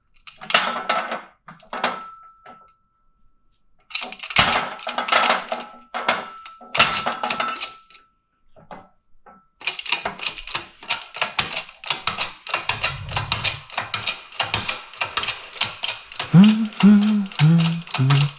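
Metal tools and parts knocking with a ringing tone while a wheel bearing is set up to be pressed into an ATV knuckle. From about ten seconds in comes a fast, steady clicking like a ratchet being worked, joined near the end by low creaking pulses with each stroke.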